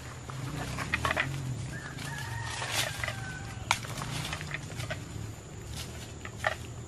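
A rooster crows once, a drawn-out call lasting about a second and a half. Around it come scattered snaps and rustles of someone stepping through undergrowth.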